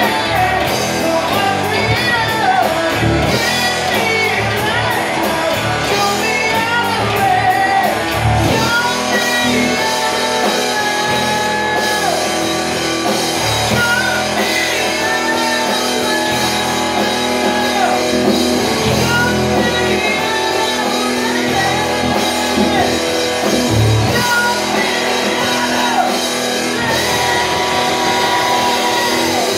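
Live rock band playing: a singer over electric guitars and a drum kit.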